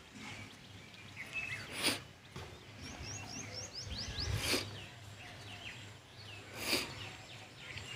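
Birds chirping over faint background noise, with a quick run of about seven short high chirps around three seconds in. A few brief rustles come at intervals.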